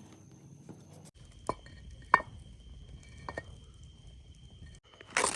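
A few separate sharp knocks or clicks from objects being handled, with a short louder rustling clatter near the end.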